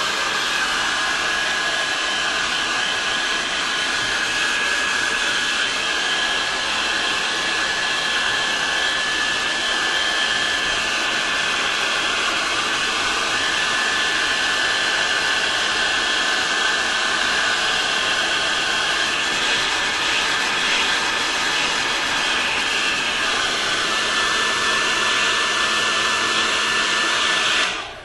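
Handheld heat gun blowing steadily, with a thin high fan whine over the rush of air. It cuts off sharply near the end.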